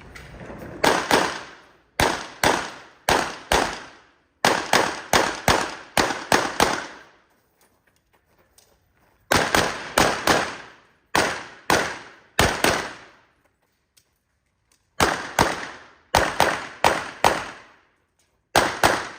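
Handgun shots fired in quick strings, often in pairs, with short pauses between groups as the shooter moves between positions. Each shot trails off briefly.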